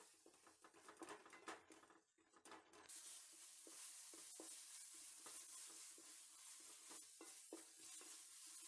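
Faint stirring with a wooden spatula, scraping and tapping against the metal. From about three seconds in, the onion-tomato masala sizzles steadily in the aluminium pot under the stirring.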